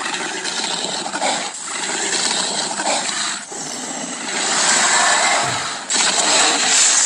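Tyrannosaurus rex sound-effect calls: about four long, rough, hissing calls one after another, with short breaks between them.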